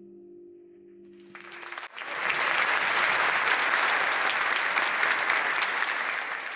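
The last held notes of a song ring on and fade out, and about a second and a half in an audience breaks into loud applause that keeps going.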